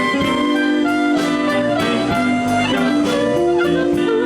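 Live blues band playing an instrumental fill between vocal lines: a harmonica holds long, bending notes over guitar, bass and a steady drum beat.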